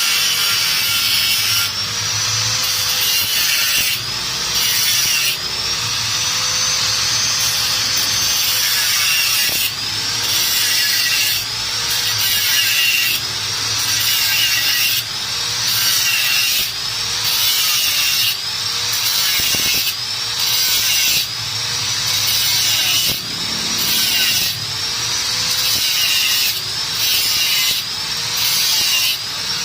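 A saw cutting a motorcycle's steel muffler in steady back-and-forth strokes, about one every second and a half, each stroke with a tone that rises and falls.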